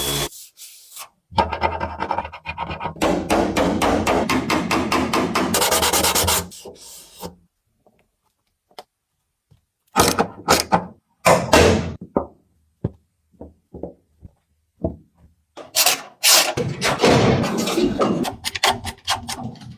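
Hand bodywork on a car's sheet metal. First comes a run of rapid, evenly repeated scraping strokes lasting several seconds, then a pause. After the pause, a string of separate sharp knocks leads into a denser cluster of knocks and scraping near the end.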